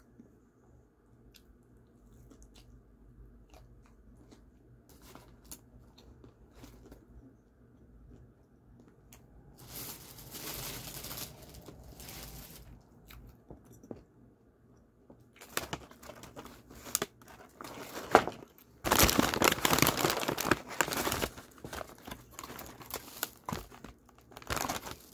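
Takeout food packaging being handled, crinkling and rustling. It starts with faint clicks, comes in short bursts about ten seconds in, then grows louder and almost continuous over the last ten seconds.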